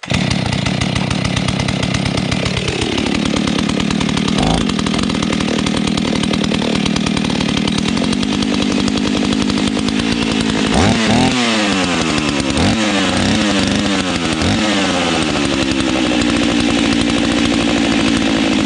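Husqvarna 61 two-stroke chainsaw firing up and running: high fast idle at first, dropping to a lower idle after about three seconds, then revved in several short throttle blips around the middle before settling back to a steady idle as it warms up.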